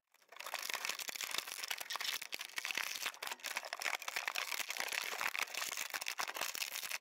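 Thin clear plastic packaging bag crinkling and crackling continuously as an action figure is worked out of it by hand, starting just after the first moment.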